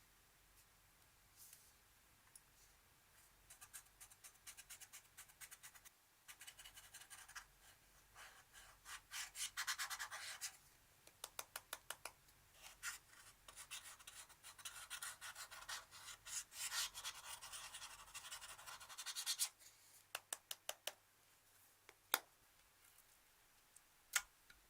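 Slime being squeezed and worked by hand, giving quiet runs of rapid crackling clicks that are busiest in the middle, then only a few single clicks near the end.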